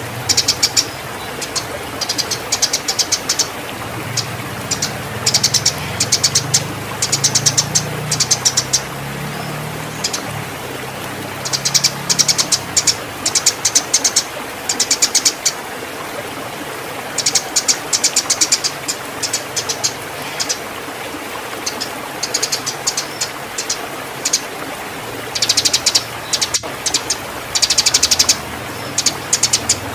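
Eurasian tree sparrows chirping and chattering in rapid bouts of a second or two, again and again, the excited calls of sparrows fighting and in breeding condition. A low hum runs underneath.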